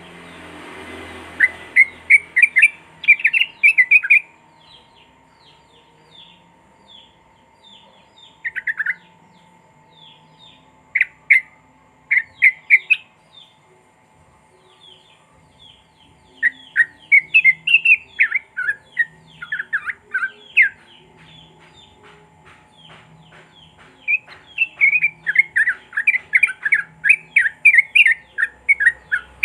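Yellow-vented bulbul (trucuk) singing in rapid runs of short, quick, descending notes, broken by pauses of a few seconds, the runs growing longer and denser toward the end. A faint steady hum lies underneath.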